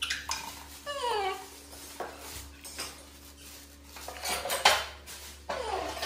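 Plastic kitchenware and a dish-rack basket clattering and knocking as they are handled, loudest a little past the middle and at the end, with a few short, high, falling squeaks.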